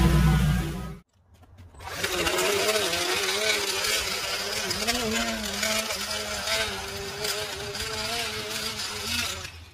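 String trimmer edging grass along a curb, its line cutting with a pitch that wavers up and down. It starts about two seconds in and stops just before the end.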